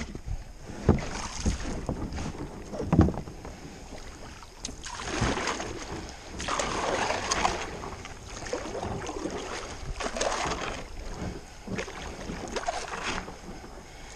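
Kayak paddle strokes in calm river water: the blades dip, swish and splash unevenly, with water dripping back off the paddle. Two sharp knocks come in the first few seconds.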